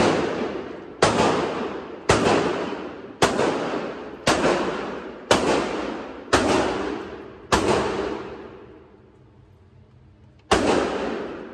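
Shots from an M4-style rifle fired one at a time in an indoor range: seven sharp cracks about a second apart, then a gap of about three seconds and one more near the end. Each shot rings out and dies away slowly in the range's reverberation.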